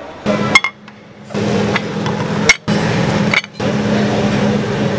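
Two sharp clinks of dishes, about half a second in and again about two and a half seconds in, over a steady room hum that drops out abruptly a few times.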